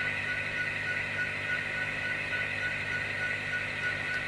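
Model diesel locomotives running on a model railroad layout, giving a steady engine-like hum and whir with no break.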